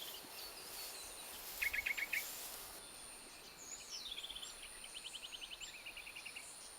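Birds calling over a thin, steady, high insect drone: a quick run of chirps about two seconds in, then descending calls leading into a longer series of rapid trilled notes from about four seconds.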